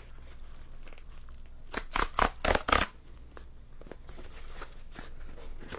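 Small kraft-cardboard box being opened by hand. About two seconds in comes a quick run of loud rasping tears of paper or card, then quieter rustling and scraping of cardboard.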